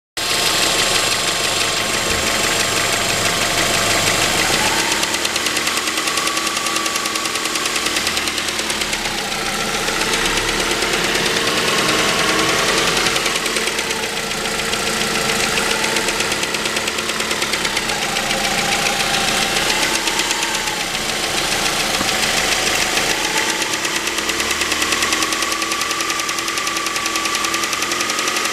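2006 Mazda 3 2.0-litre LF four-cylinder petrol engine running, with a steady mechanical clatter; its pitch drifts gently up and down every few seconds.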